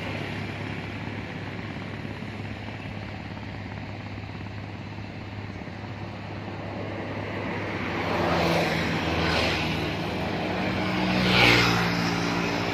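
Motor traffic on a bridge: a steady engine hum, with vehicles passing close by about eight and eleven seconds in, the second pass the loudest.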